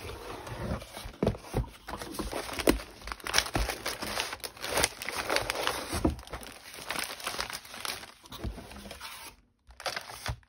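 Cardboard kit box being opened by hand, its lid lifted off and paper sheets inside rustling and crinkling as they are handled, with irregular light taps and scrapes.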